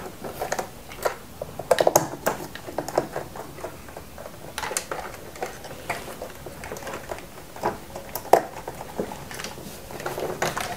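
Irregular small clicks, taps and rustles of hand wiring work: a screwdriver at a plastic terminal-block screw, then a wire being pushed into slotted plastic cable duct.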